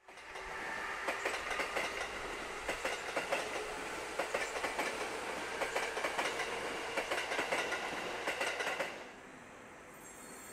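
Electric commuter train running along the track, its wheels clicking again and again over rail joints. About nine seconds in the sound cuts off to a quieter background hum.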